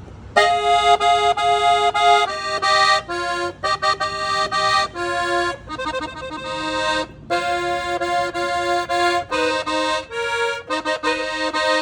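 Accordion playing a melody in short repeated notes and chords on its celeste register, starting about half a second in.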